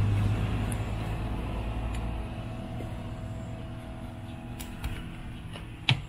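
A motor vehicle's engine hums low and steadily, slowly fading away over several seconds. A sharp click comes just before the end.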